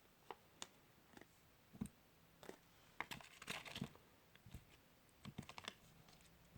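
Faint, scattered clicks and crinkles of small plastic Kinder Surprise toy parts and their wrapper being handled, with a short denser crinkle about three and a half seconds in.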